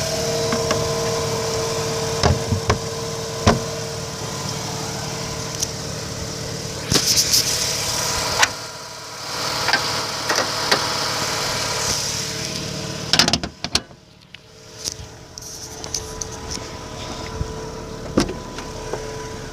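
2005 Mazda RX-8's two-rotor Renesis rotary engine idling steadily and smoothly, with no rough idle. Several sharp clicks and knocks come over it, the loudest a cluster about 13 seconds in, after which the engine sound is quieter.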